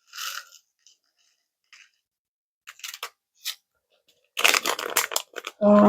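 Small craft pieces and materials being handled on a work surface: scattered clicks and crinkly rustling, thickest about four to five and a half seconds in. A short voiced sound comes just before the end.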